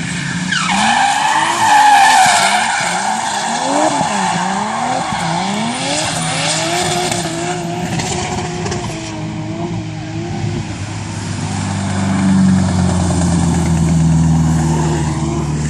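Drift car sliding through a corner with its tyres squealing, the engine revs climbing and dropping roughly once a second as the throttle is worked, then holding steadier. A lower, steady engine note builds up near the end.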